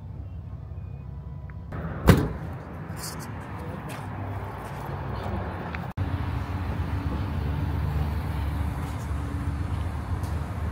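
Steady low vehicle rumble with one loud sharp knock about two seconds in; about six seconds in the rumble jumps suddenly louder.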